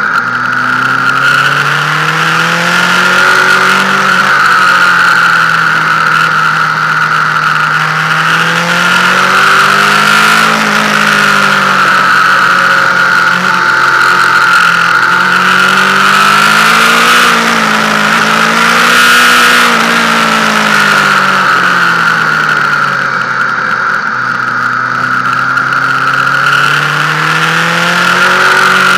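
Yamaha FZ8's inline-four engine running under way, its pitch rising and falling several times as the bike speeds up and slows through a run of bends. Wind noise rushes over the microphone, with a steady higher whine on top.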